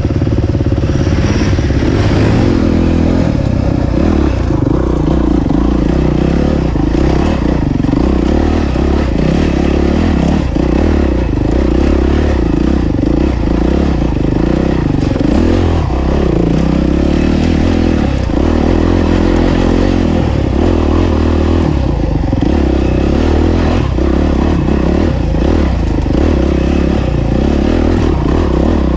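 Enduro dirt bike engine running under constantly changing throttle while riding off-road, with rattling and scraping from the bike over rough ground.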